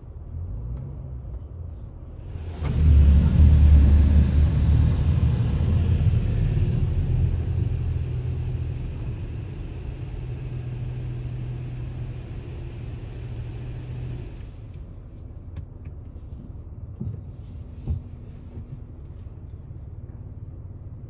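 WashWorld Razor touch-free car wash machinery starting its cycle, heard from inside the car. A loud rumble with a hiss sets in suddenly about two and a half seconds in, eases off gradually and stops after about twelve seconds, leaving a low hum and a couple of light knocks.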